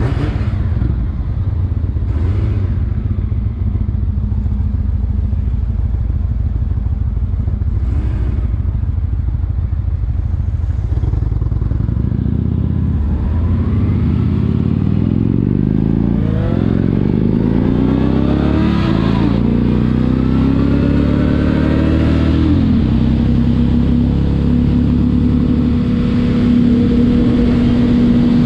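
Motorcycle engine running under way with a low rumble. About halfway through its pitch climbs and drops back several times as it shifts up through the gears, then it settles into a steady drone at cruising speed.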